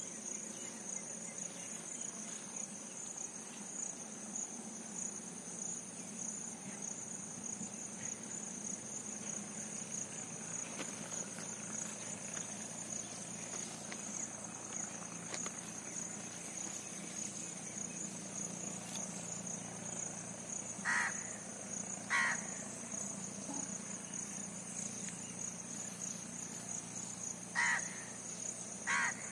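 Outdoor ambience: a steady high-pitched insect chirring, with four short bird calls, a pair about two-thirds of the way through and another pair near the end.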